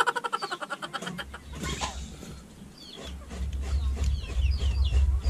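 Chickens clucking in a fast run of calls at the start, small birds chirping throughout, and a low rumble that builds from about three seconds in.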